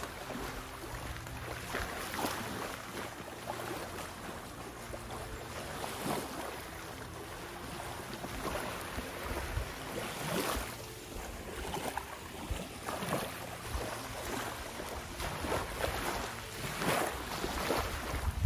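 Small waves lapping gently at the water's edge on a sandy beach, each soft wash swelling every few seconds. There is some wind buffeting the microphone.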